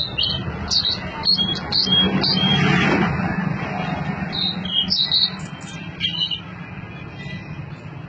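Caged blue-and-white flycatcher singing short, high, sharp notes in clusters, over background traffic noise that swells through the middle and then eases.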